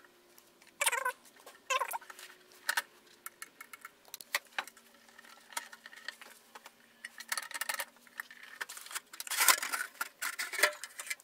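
Metal cover of a Tektronix 465 oscilloscope being lifted off and the instrument handled and turned over: an irregular run of light clicks, scrapes and rattles, busiest and loudest near the end.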